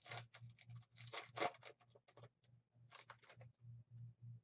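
Foil trading-card pack wrapper crinkling and tearing as it is opened and the cards are slid out, in three bursts of rustling, the loudest about a second and a half in.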